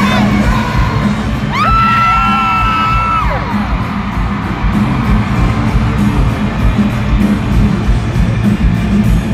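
Live K-pop concert music over an arena sound system, heard from within the crowd, with fans yelling. About a second and a half in, a high voice swoops up and holds one long note for nearly two seconds; then a steady, even dance beat comes in.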